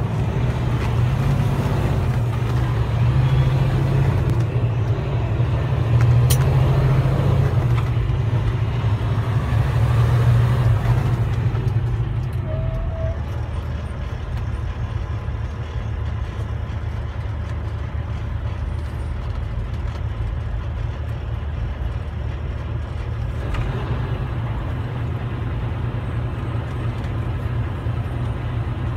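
Steady engine hum and road noise heard inside a truck's cab while driving in traffic, a little louder for the first ten seconds or so, with a single click about six seconds in.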